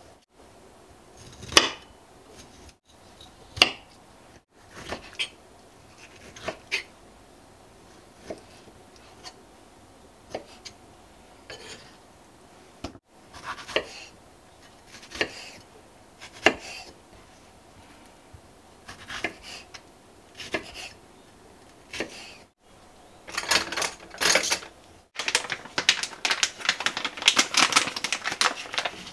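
Kitchen knife cutting kiwi and strawberries on a wooden cutting board, the blade knocking on the board every second or two. Near the end comes a dense crinkling of a plastic packet being torn open.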